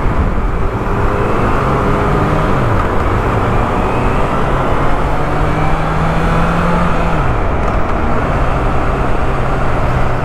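Motorcycle engine running while riding in city traffic, its note dropping about two and a half seconds in and again around seven and a half seconds in, over a heavy low rumble.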